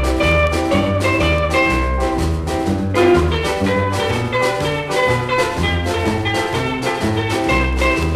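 A 1962 blue beat (early ska) record playing: a band with drums and bass in an instrumental passage with a steady beat.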